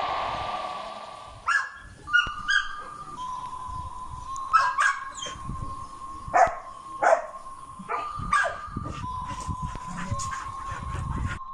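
Dogs barking and yipping: a scattered series of about ten short, sharp barks.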